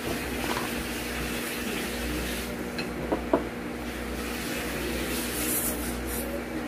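Eating pancit canton noodles, mukbang-style: two light clicks of a utensil on dishware about halfway through, then wet slurping as a forkful of noodles is sucked in near the end, over a steady background hum.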